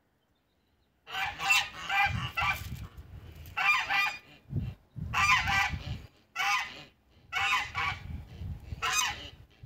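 Domestic geese honking: a string of loud, harsh calls starting about a second in and coming in bursts every second or so.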